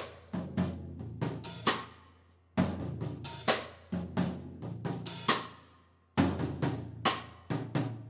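Acoustic drum kit played in short groove phrases of kick, snare and cymbal hits, broken twice by brief pauses.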